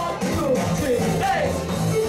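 Live band playing dance music, with a singer's wavering melody over a steady bass line.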